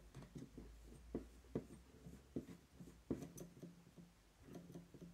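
Faint, irregular clicking from an Aiwa AD-F410 cassette deck mechanism as its flywheel and belt are turned by hand. The clicking comes from part of the mechanism rubbing where it rests on the desk, not from the belt drive itself.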